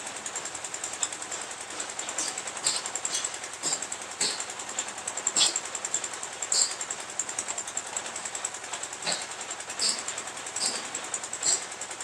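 Concrete mixer's small stationary diesel engine running with a fast, even chatter, and sharp metal clanks from the machine at irregular intervals.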